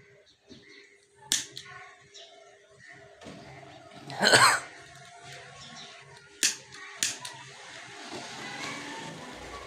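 Fabric and a paper pattern being handled at a sewing machine: a few sharp clicks and a loud rustling swish about four seconds in. A faint low hum builds near the end.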